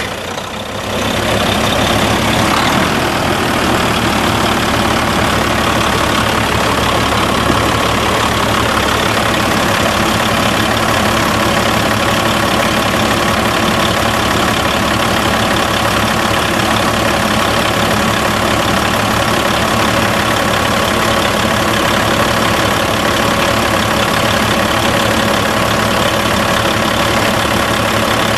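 Caterpillar six-cylinder turbo diesel in a Peterbilt 379 semi truck idling. It comes up to a steady idle in the first two seconds after starting, then runs evenly.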